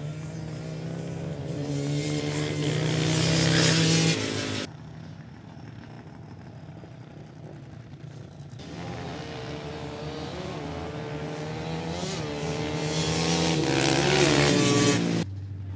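Sport ATV engines at full throttle in a dirt drag race, revving higher and growing louder down the strip. The sound cuts off abruptly about four and a half seconds in and an engine runs more quietly for a few seconds. Then another run builds louder and cuts off abruptly near the end.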